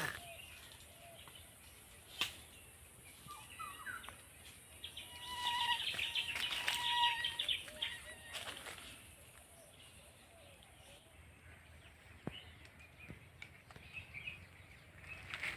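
Bird calls outdoors: a loud run of pitched calls in the middle, with a few sharp clicks and faint rustling around it.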